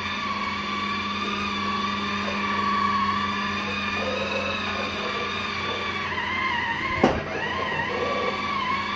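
Electric spin scrubber running, its pad turning against wet tile. The motor whine wavers in pitch over a steady hum and dips around six to seven seconds in. There is a sharp knock about seven seconds in.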